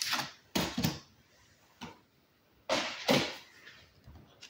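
Tarot cards being laid down and shuffled about on a wooden table: a few short slaps and taps, mostly in pairs, with small ticks near the end.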